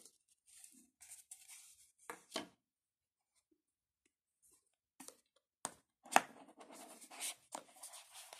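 Cardboard smartphone packaging being handled: card inserts and the paper tray slide and scrape against the box, in short rustles. There is a sharp tap about six seconds in, followed by a stretch of steadier scraping.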